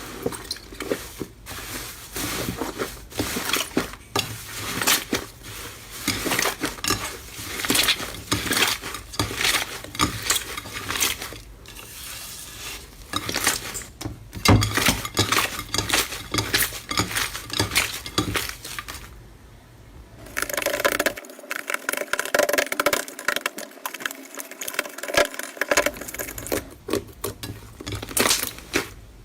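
Slime being squeezed, poked and kneaded by hand, giving dense crackling with many sharp clicks and pops. After a short lull about two-thirds through, the crackling carries on thinner, without its low rumble.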